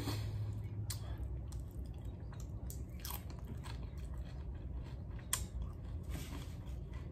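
Crunching and chewing of tortilla chips from a bowl of nachos, eaten close to the microphone, with scattered sharp crunches over a low hum.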